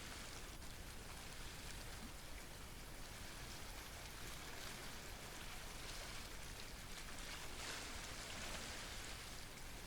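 Steady wash of water noise, with a few brief swells.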